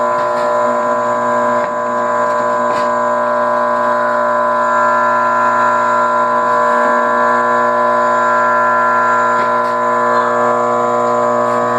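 Bench drill press running steadily, its motor giving a constant hum and whine, with a few faint clicks.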